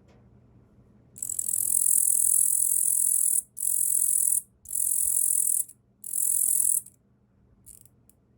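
Male Tettigonia orientalis katydid stridulating: a high-pitched buzzing song in four bursts, the first about two seconds long and the next three shorter, with a few faint ticks near the end.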